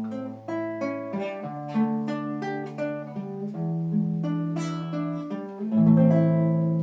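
Acoustic guitar played fingerstyle: a melody of single plucked notes over held bass notes, ending in a louder chord that rings on near the end.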